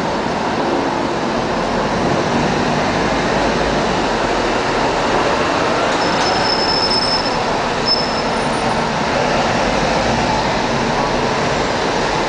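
Steady, loud din of a busy station forecourt and bus station, traffic and vehicle noise echoing under the canopy. A short high squeal sounds about six seconds in and a briefer one about two seconds later.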